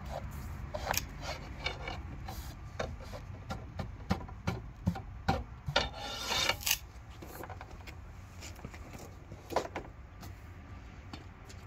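Steel brake line scraping and clicking against the inside of an axle tube as it is worked back and forth and pulled out: a run of scrapes and clicks for the first seven seconds or so, then quieter. A low steady hum runs underneath.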